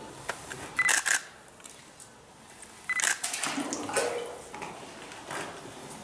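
Two short bursts of sharp clicks about two seconds apart, over faint, quiet background sound.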